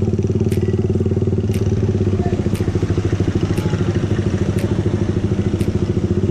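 Suzuki motorcycle's engine running at low speed through an aftermarket Hi Speed open-spec muffler, a steady pulsing exhaust note. A short sharp tick repeats about once a second over it.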